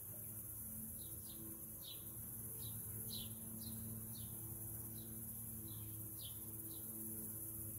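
A bird giving short chirps that drop in pitch, roughly one every half second, over a steady low hum and a high hiss.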